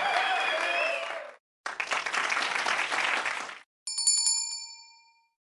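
Two stretches of dense, crackly noise, the first with a few wavering whistle-like tones through it, then a small bell rung rapidly several times about four seconds in, ringing out within a second.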